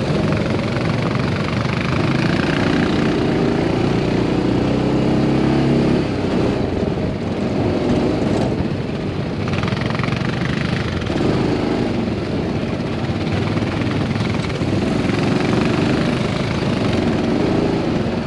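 Side-by-side UTV engine running under way, heard from on board, its note climbing and dropping several times as the vehicle speeds up and slows on a dirt track.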